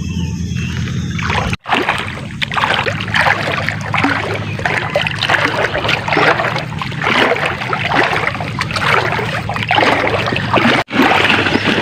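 Water splashing and sloshing in repeated surges, like small waves breaking and washing, loud and noisy throughout. It cuts in abruptly after a brief stretch of music at the start.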